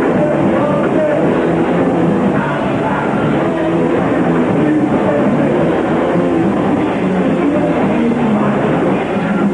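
Live punk band playing loud and without a break: drum kit, bass and electric guitar together, on a lo-fi recording.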